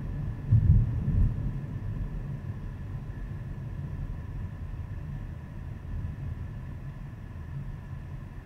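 Low rumble of a car's engine and tyres on the road heard inside the moving car's cabin, with a brief louder surge of rumble about a second in and the level easing off toward the end.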